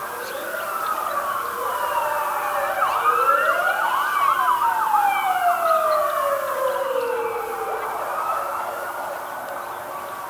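Sirens wailing: several slow rising and falling wails overlap and cross each other. They grow louder to a peak a few seconds in, then fade.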